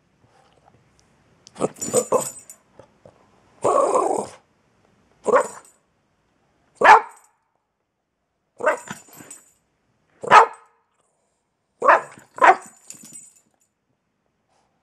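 Boston terrier barking in short, loud, separate barks, about nine of them with pauses between, one longer and rougher near four seconds in. He is barking at the camera, objecting to having his picture taken.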